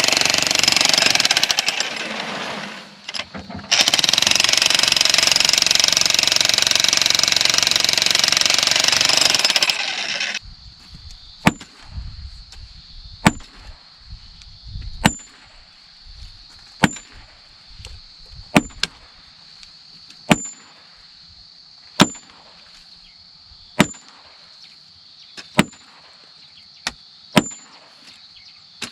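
Jackhammer breaking stone, a dense continuous clatter that drops out briefly about 3 s in and stops about 10 s in. Then a metal tool strikes the stone in slow, regular blows, about one every second and three-quarters, each with a short metallic ring.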